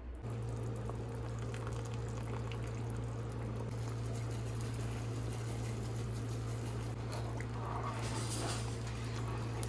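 A pot of menudo boiling on the stove, the broth bubbling steadily over a steady low hum, in its final boil after salting.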